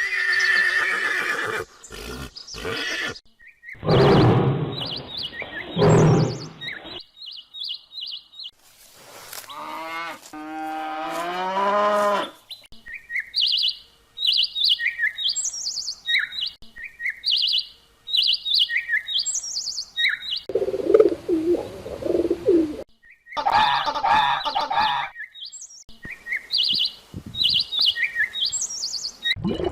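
A string of different animal calls cut one after another: loud low calls, rising pitched calls, and rows of short, high bird chirps through the middle and again near the end.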